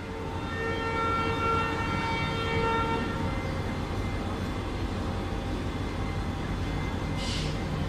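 Train horn sounding a steady pitched blast for about three seconds, with a short dip about two seconds in, as an Indian Railways express starts to pull out. Under it and after it comes the low steady rumble of the passenger coaches rolling slowly past, with a brief hiss near the end.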